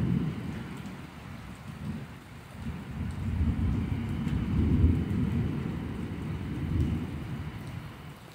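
Thunder rumbling in long rolling swells, loudest a few seconds in, over a steady hiss of rain.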